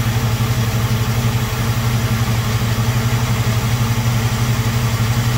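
1967 Pontiac Firebird's 326 cubic-inch V8 with a four-barrel carburettor, idling steadily at an even pace.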